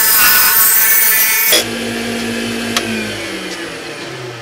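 Woodturning gouge cutting a spinning wood handle blank on a lathe, a loud shaving hiss that stops about a second and a half in. The lathe's motor then keeps running with a steady whine that falls in pitch near the end as the spindle slows, with a single click in between.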